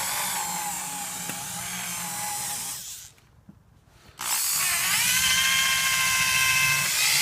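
Electric drill with a buffing pad, buffing rubbing compound into car paint. It runs for about three seconds, stops for about a second, then starts again with a rising whine as it spins up and runs on.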